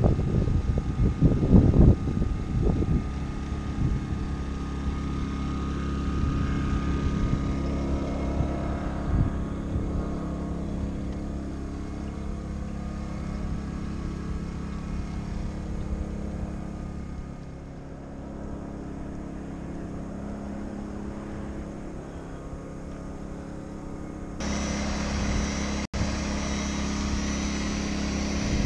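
Electric rotary buffer running steadily against a boat hull. The motor sound steps up suddenly, louder and brighter, about three-quarters of the way through.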